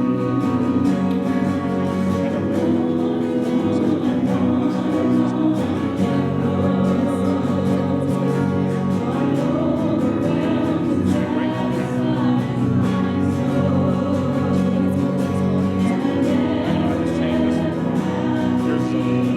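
Live church worship music: a group of voices singing together over a band with a steady beat.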